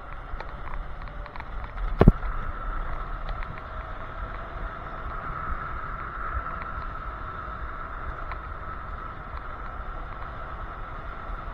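Electric scooter riding along a road: wind rushing over the microphone and a steady high whine from the drive. One sharp knock comes about two seconds in.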